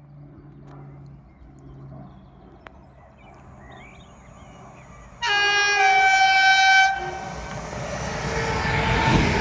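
A train sounds one loud horn blast lasting about a second and a half, about halfway in, then the rumble of the approaching train builds steadily louder.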